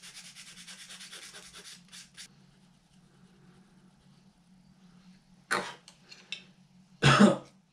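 Fingers rubbing and scratching over a small plastic lure while working super glue onto it for about two seconds. Then two short, sharp coughs, the second the louder, as the super glue fumes catch him.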